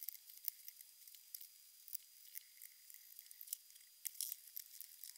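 Faint, scattered small clicks and ticks of a screwdriver backing out the tiny screws that hold the cooler to a graphics card.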